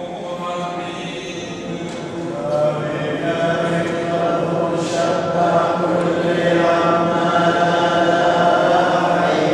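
Church congregation singing a liturgical chant together, the many voices holding long notes. The singing swells louder about two and a half seconds in.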